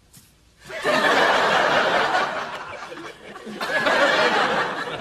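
Sitcom studio audience laughing, breaking out about a second in, easing off, then swelling again near the end.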